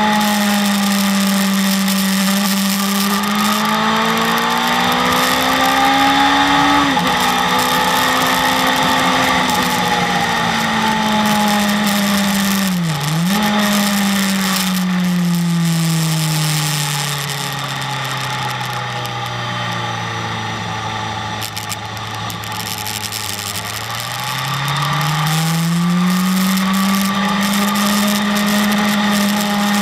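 BMW S1000RR inline-four engine running hard at speed, climbing in pitch to a gearshift about seven seconds in. It dips sharply once around thirteen seconds in, then falls slowly for about ten seconds as the bike slows, and climbs again near the end. A steady rush of wind noise runs underneath.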